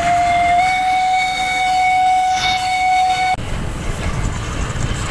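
Steam whistle of the E1060 steam locomotive, one long steady blast that rises slightly in pitch as it opens and cuts off suddenly after about three seconds. The low rumble of the moving train follows.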